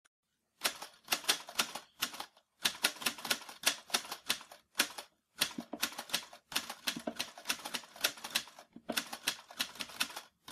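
Typewriter keystroke sound effect: quick runs of sharp key clicks, several a second, broken by short pauses. It accompanies text being typed out on a title card.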